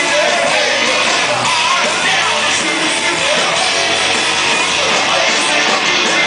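Live rock band playing loud, with electric guitars and drums.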